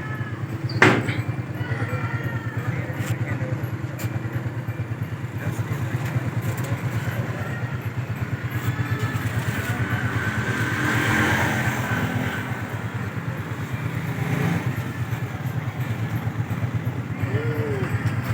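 An engine running steadily with a low, evenly pulsing hum, and one sharp click about a second in.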